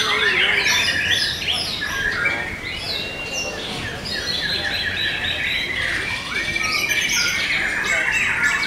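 Several white-rumped shamas singing at once, many short whistled phrases and glides overlapping without a break.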